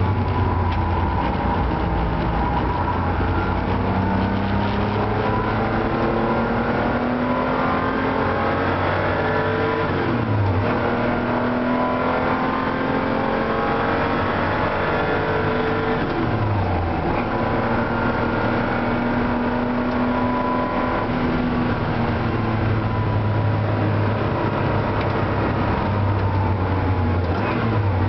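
Porsche 911 SC's air-cooled flat-six heard from inside the cabin under hard acceleration on track, its pitch climbing steadily and dropping sharply at gear changes about ten and seventeen seconds in.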